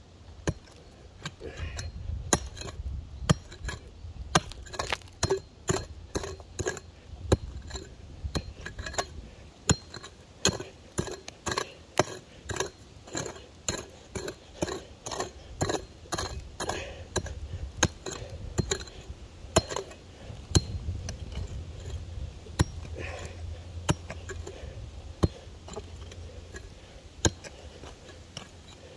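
A small pick chopping into hard, stony dry ground to dig a hole, in a run of sharp blows with scraping, about one to two a second, thinning out near the end.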